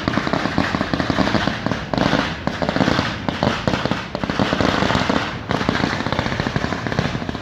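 Low-noise display fireworks firing in the finale: a dense, continuous rapid crackle of many small pops overlapping, with no gap.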